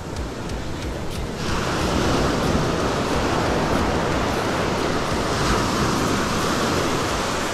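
Ocean surf breaking and washing up a sand beach: the rush swells sharply about a second and a half in and eases near the end.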